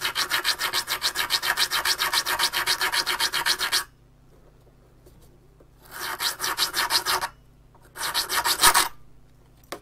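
Diamond file sawing back and forth across the glass base of a Saticon camera tube, scoring round it so the base can be broken off. It makes quick, even rasping strokes in three runs: a long one of about four seconds, then two shorter ones after brief pauses.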